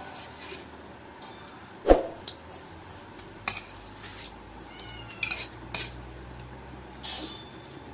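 Metal spoons clinking and scraping against stainless steel plates of noodles, in scattered strikes with one sharp clink about two seconds in. A faint high gliding call comes around the middle.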